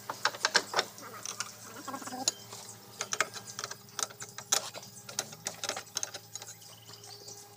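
Irregular metallic clicks and clinks of hand tools being worked on a backhoe loader's hydraulic cylinder, over a steady low hum.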